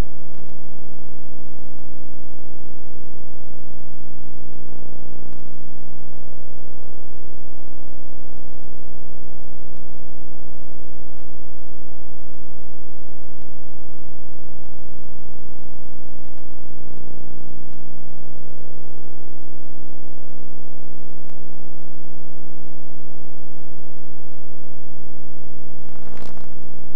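Steady electrical hum with many overtones, unchanging throughout, broken by a short crackle near the end.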